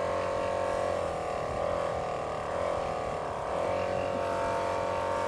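A 12-volt air compressor running with a steady drone whose pitch wavers slightly.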